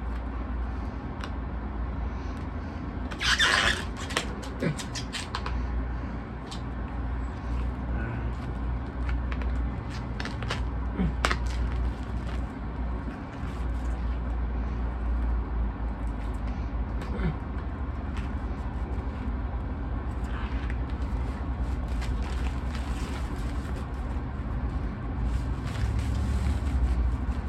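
Plastic shrink-wrap crinkling and rustling as it is pulled off a vinyl LP sleeve, with a loud crinkle about three seconds in and scattered sharp clicks, over a steady low hum.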